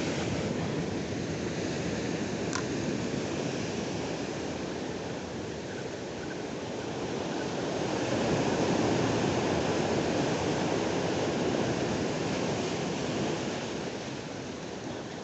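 Ocean surf breaking and washing over rocks at the shoreline, a continuous rushing that swells louder in the middle and eases off near the end.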